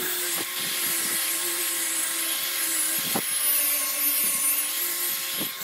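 Angle grinder with a sanding disc running steadily while sanding a pine board, the motor's whine wavering a little with the load over a steady abrasive hiss, with a few short knocks.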